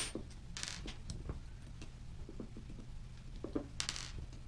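Faint clicks and taps of small metal parts being handled as screws are taken out of a radial inserter's pusher assembly with a hex key. There are two brief scraping rustles, about a second in and near the end.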